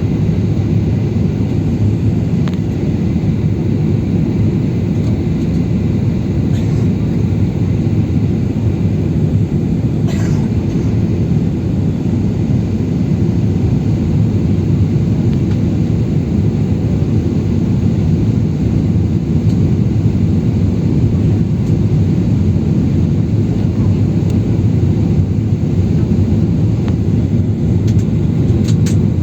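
Steady drone of an airliner heard from inside the passenger cabin: engine and airflow noise, deep and even throughout, with a couple of faint ticks.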